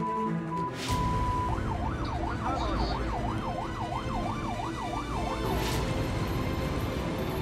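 Ambulance siren yelping, rising and falling in pitch about two and a half times a second for roughly four seconds, over the low rumble of the moving ambulance.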